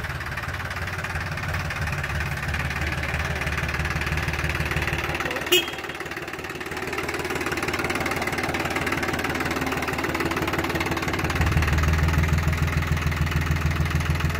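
Farm tractor's diesel engine running steadily at low speed, with a brief click about five seconds in. The engine grows louder about two-thirds of the way through.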